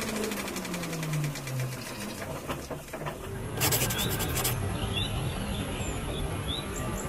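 A falling mechanical hum with a fast rattle dies away over the first couple of seconds. A short rasping rattle follows about three and a half seconds in, then birds chirping in short rising calls over a steady high-pitched drone.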